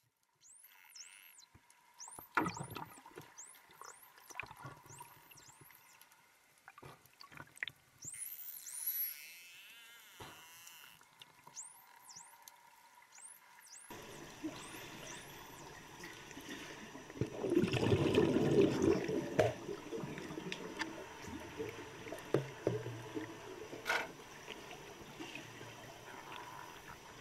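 Underwater pool sound picked up by a submerged camera: water noise with scattered clicks, and a louder bubbling rush from about 17 to 20 seconds in. In the first half a series of short high chirps repeats about once a second.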